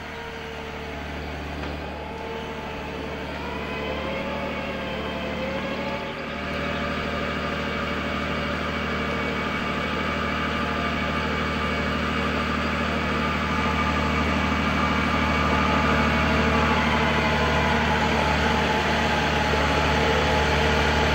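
John Deere 1210E forwarder's diesel engine running steadily and growing gradually louder as the machine drives closer, with a whine that rises in pitch a few seconds in.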